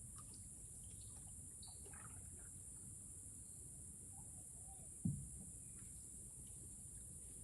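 Faint rainforest ambience: a steady high-pitched insect drone with scattered short bird chirps, and one sudden knock against the canoe about five seconds in.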